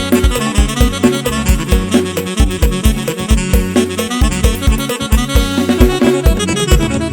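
Electronic keyboard (Electone) played live as fast dance music: a busy melody and chords over a steady, heavy kick-drum beat with deep bass.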